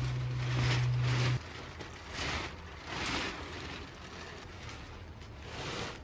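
Plastic poly tarp rustling and crinkling in repeated swishes as it is pulled and spread over a woodpile. A low steady hum, the loudest sound at first, cuts off suddenly about a second and a half in.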